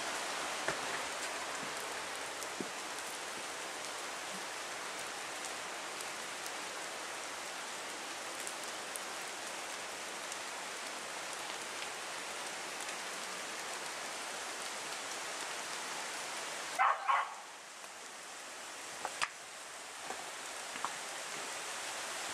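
Steady rushing of running water that drops away suddenly about seventeen seconds in, where a dog barks twice; the rushing then builds back up near the end.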